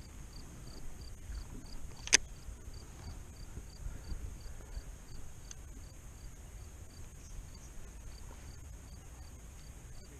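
Crickets chirping steadily, a little over two high chirps a second, over a constant high insect hiss. A single sharp click sounds about two seconds in.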